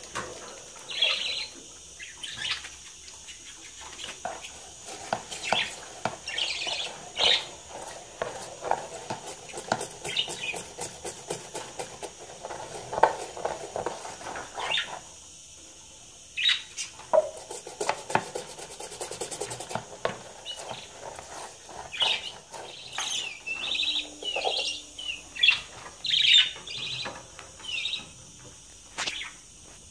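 Budgerigars chirping and chattering in short, repeated calls, with scattered sharp clicks and knocks throughout.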